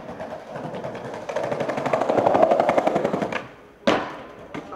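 Skateboard wheels rolling fast over tiled pavement, clacking over the tile joints in a rapid run of clicks that grows louder as the board approaches, then stops. About four seconds in comes one sharp crack as the board goes onto the granite ledge.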